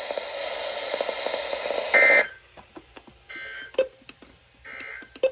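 EAS end-of-message data signal on NOAA Weather Radio: after about two seconds of radio hiss come three short, evenly spaced bursts of warbling two-tone digital data, marking the end of the alert. Two sharp clicks fall between and after the bursts.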